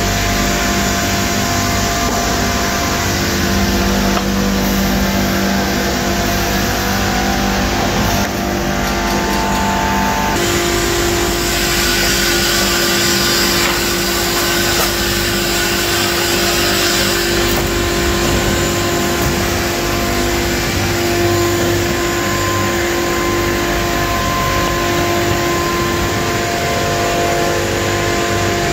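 Multi-blade rip saw and sawmill machinery running steadily: a constant mechanical din with several whining tones. The sound shifts about ten seconds in, when a new steady tone starts.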